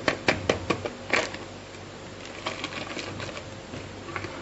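Quick light clicks, about four a second, as the baking powder sachet is tapped against the metal wire whisk over the mixing bowl, then a short papery rustle about a second in and a few softer ticks.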